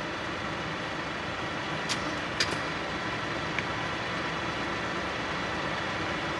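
Cugir FU-36 universal milling machine's power table feed running steadily, with a faint steady whine, while the feed-rate selector is turned toward its maximum of 950 mm/min. Three short sharp clicks come about two seconds in, shortly after, and again over a second later.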